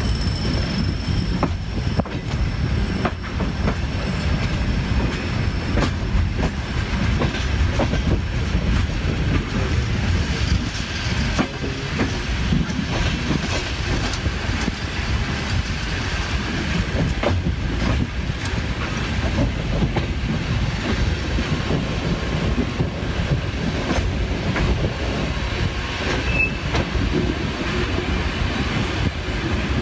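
Passenger train running along the track, heard from on board: a steady low rumble from the wheels and running gear, with scattered clicks as the wheels pass over rail joints.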